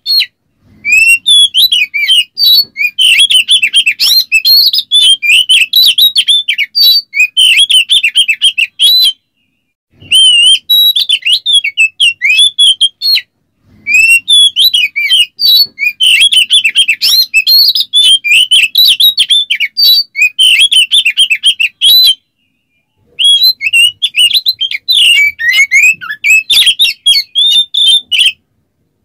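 Oriental magpie-robin (kacer) in full, fast song: a dense stream of quick chirps, slurred whistles and harsh rasping notes, broken by three short pauses.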